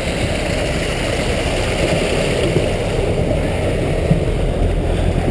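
Steady rushing and gurgling of aerated water draining from a fish-stocking truck's tank, over a low steady hum from the tank's air pump, which is kept running.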